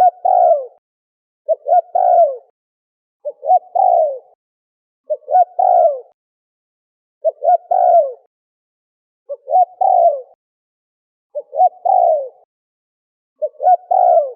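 Spotted dove cooing: the same short phrase of quick notes ending in a longer falling coo, repeated about every two seconds.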